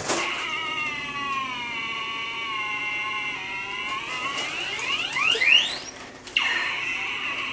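A woman in labour moaning through a contraction. One long, held vocal cry lasts about four seconds and climbs steeply in pitch, then breaks off and starts again near the end.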